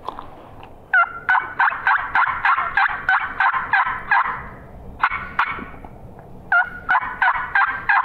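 Turkey yelping: a long run of about ten sharp yelps, some three a second, then two more, then a run of five near the end.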